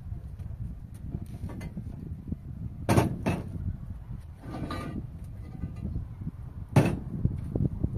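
Sharp knocks, two close together about three seconds in and a single louder one near seven seconds, over steady low rustling and clattering.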